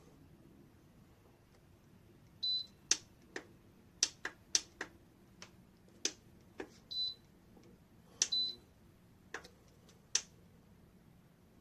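Buttons on a Lasko FH515 tower fan-heater's control panel being pressed: a dozen or so sharp clicks at irregular intervals, with three short high beeps among them.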